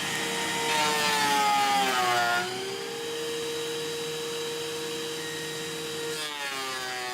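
Power tool motor flattening a cast resin block. It runs with a steady hum, and twice, once early and once near the end, its pitch sags and it grows louder as it bites into the resin.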